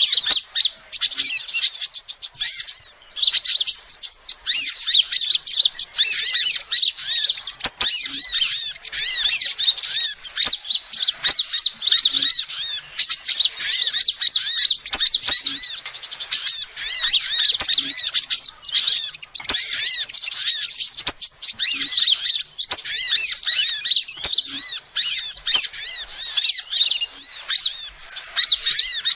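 Female sunbird (kolibri) chirping: a dense, near-continuous run of quick, high, thin twittering notes with only short breaks. It is played as a lure call to draw small birds in.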